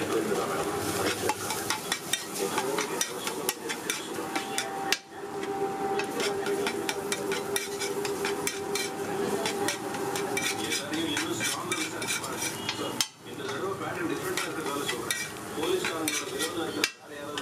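Metal spatula scraping, tapping and chopping against a flat iron tawa as eggs and fried fish are mixed into a bhurji, with a steady sizzle of frying. A steady low hum runs underneath.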